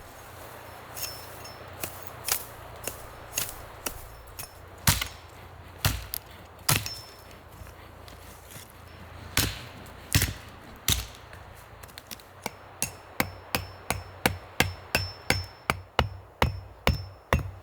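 A stake being hammered in for a campfire spit: sharp knocks, spaced irregularly at first, then a quicker run of about three blows a second near the end.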